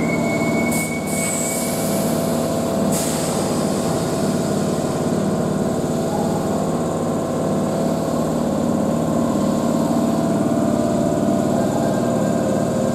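A Keihan 2400 series electric commuter train standing at the platform, its underfloor equipment humming steadily. There are two short hisses of air near the start.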